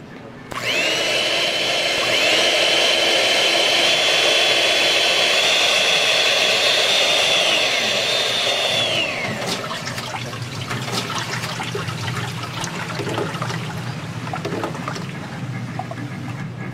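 Electric hand mixer beating a large pot of raw eggs: the motor starts about half a second in with a rising whine, steps up in speed, runs steadily, then winds down about nine seconds in. After that come quieter wet sloshing and pouring sounds of the beaten egg batter.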